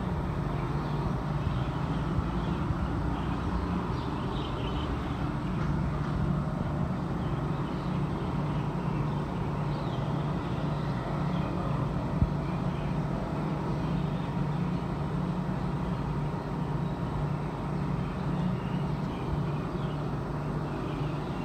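Compressed natural gas dispenser running while a car is filled, a steady low hum with an even rushing noise under it.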